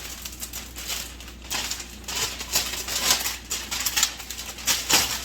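Cellophane crinkling in irregular crackles as its corners are folded and gathered by hand.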